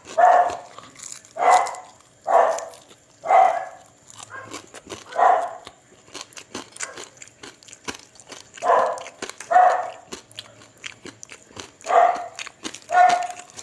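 A dog barking repeatedly: about nine short barks, some in quick pairs, spread a second or two apart, with faint small clicks between them.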